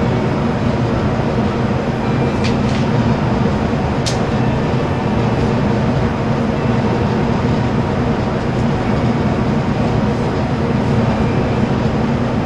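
Steady drone of a ventilation fan with a low hum, and a few faint ticks about two to four seconds in.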